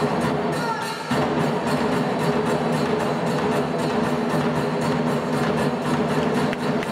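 Nanbu kagura ensemble music: drum and small hand cymbals keep up a steady, rapid beat, coming in fuller about a second in.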